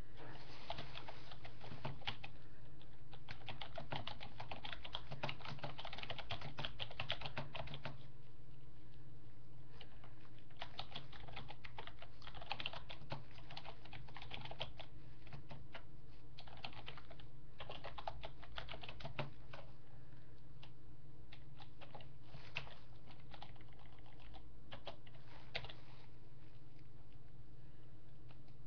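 Typing on a computer keyboard in several bursts of rapid keystrokes with short pauses between them, over a steady low hum.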